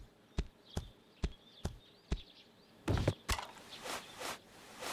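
Cartoon footstep sound effects: a walk of evenly spaced steps, about two and a half a second, followed by a few louder knocks about three seconds in.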